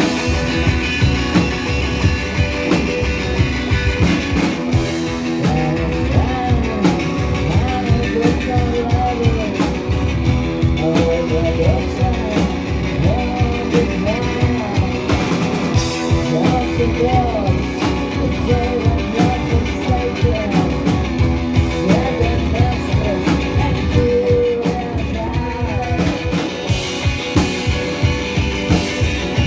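A garage-punk rock band playing live: a steady drumbeat under droning guitars, with a wavering melodic line over the top.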